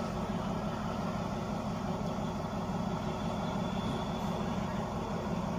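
Diesel engine idling on a stationary passenger train waiting for its departure time: a steady low rumble that does not change.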